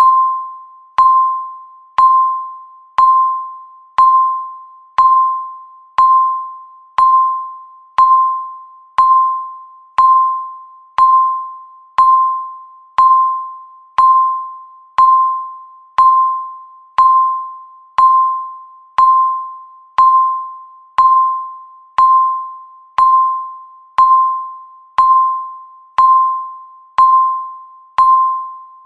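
Countdown timer beep: a single mid-pitched electronic ding once every second, each starting sharply and dying away before the next.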